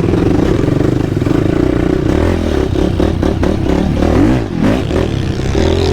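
ATV engine running and revving up and down over rough trail, with clattering knocks from the ride.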